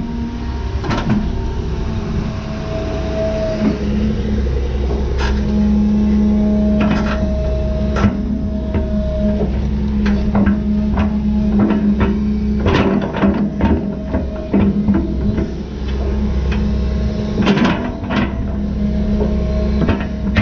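John Deere 210G excavator running under load, a steady engine hum with a hydraulic whine that comes and goes as the boom and bucket work, and scattered knocks of stones against the steel bucket. Past the middle, a run of knocks and thuds as the bucket load of dirt and rock is dumped into the dump truck.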